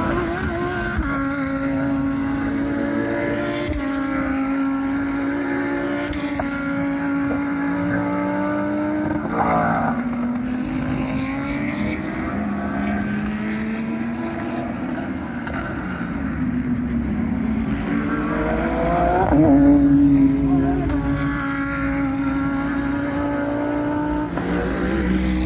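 GT3 race car engines running at racing speed, their pitch climbing and dropping back several times as the cars shift gears and pass by, loudest a little past the three-quarter mark.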